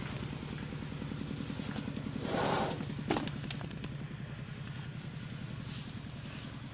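Asian elephant working banana stalks with its trunk: a short hissing whoosh about two and a half seconds in, then a sharp snap half a second later. Under it runs a steady low throbbing hum.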